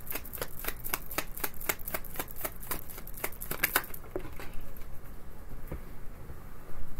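A tarot deck being shuffled by hand: quick, even card clicks at about four a second, stopping about four seconds in, with a few faint taps after.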